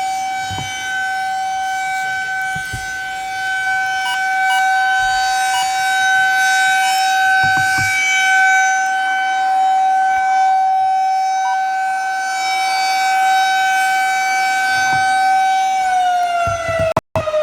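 Federal Signal 2001-SRNB rotating outdoor warning siren sounding its steady alert tone, loudness swelling and easing as it turns. About sixteen seconds in the pitch begins to fall as the siren winds down, and the sound cuts out for a moment just before the end.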